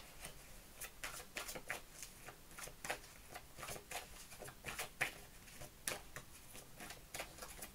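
A deck of fortune-telling cards being shuffled by hand, overhand: faint, irregular clicks of cards slapping together, a few a second.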